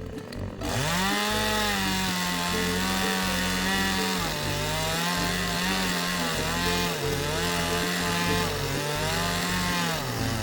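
Two-stroke chainsaw engine starting up loud about a second in and running at high revs, its pitch dipping and recovering several times.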